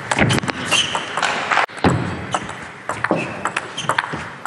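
Table tennis rally: the celluloid-type plastic ball clicking off rubber-faced rackets and the table in quick succession. The sound breaks off sharply about a second and a half in, then the clicks of another rally resume.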